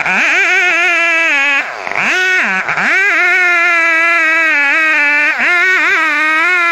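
Large two-stroke chainsaw running at full throttle as it cuts into a huge tree trunk. Its pitch drops sharply and recovers a few times as the chain bogs in the cut, most deeply about two seconds in.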